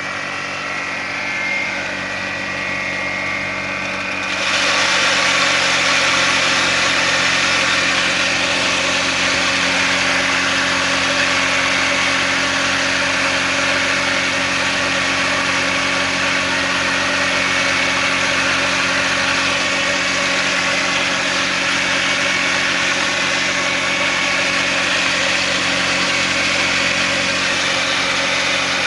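Homemade two-blade grinder driven by a washing machine motor, running steadily with a hum. About four seconds in it grows louder and harsher and stays that way to the end.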